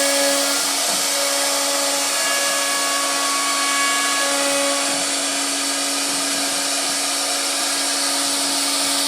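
CNC router spindle running with a steady high whine over a rushing noise, its bit carving a wooden door panel.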